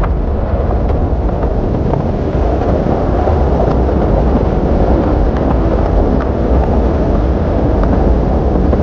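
Wind buffeting the microphone over the road noise of a moving vehicle: a loud, steady, deep rumble.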